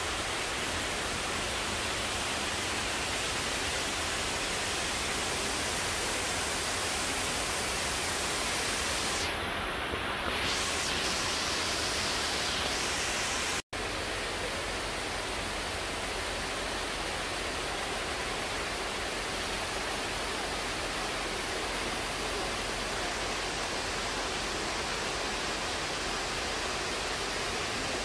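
Steady, even rushing noise with no distinct events. It drops out for an instant about 14 seconds in at a cut, and its upper hiss is brighter for a few seconds before that.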